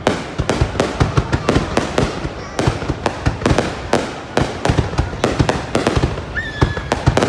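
Fireworks going off in a dense barrage of sharp bangs and crackles, several a second with no let-up. A short high whistling tone sounds about six seconds in.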